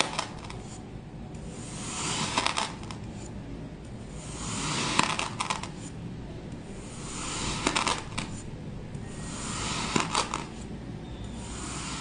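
A knife blade slicing through a packed block of kinetic sand, one slice about every two and a half seconds: each stroke is a gritty hiss that builds and ends in a crisp crackle as the slab breaks free.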